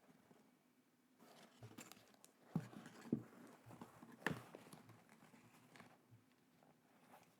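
Quiet handling noises of unboxed merchandise and packaging: soft rustling with three light knocks, the loudest a little after four seconds in.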